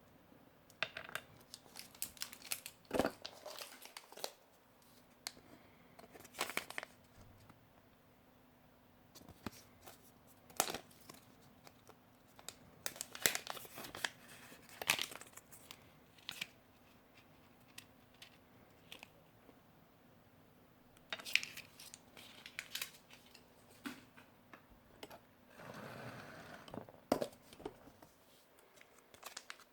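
Plastic and foil ration packaging being crinkled and torn open in irregular rustles and crackles, over a faint steady hum.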